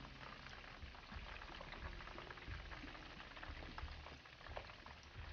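Hot oil sizzling and crackling around pieces of cornstarch-and-egg-coated chicken shallow-frying in a pan, with a few light knocks as the pieces are turned with metal tongs.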